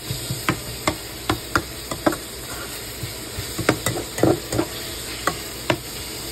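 A slotted spatula knocking and scraping against a frying pan as ground pork and onions are stirred, in irregular strokes bunched in the first two seconds and again around four seconds in. A steady sizzle of the meat frying runs underneath.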